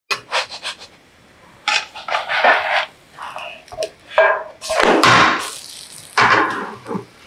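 Spatula scraping and knocking against a nonstick frying pan as a thick round of dough is lifted and flipped over. A few short clicks come first, then several bursts of scraping and handling, the loudest about five seconds in as the dough is turned.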